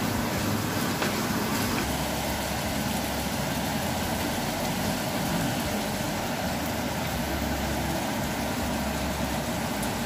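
Diced bacon and onions sizzling in a frying pan, a steady crackling hiss over a low steady hum.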